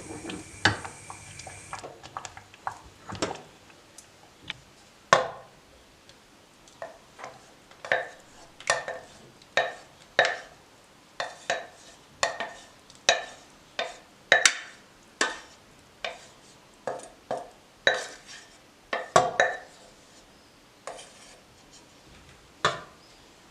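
A spoon stirring in a dish, clinking against its side in a steady rhythm of about three clinks every two seconds.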